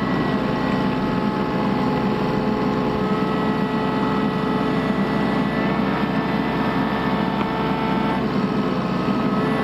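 Bobcat mini excavator's diesel engine running steadily, with a steady whine over the engine note that shifts about eight seconds in.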